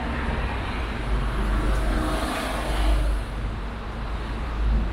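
City street traffic: cars driving past with a steady low rumble, one passing close about two seconds in, its tyre and engine noise swelling and fading.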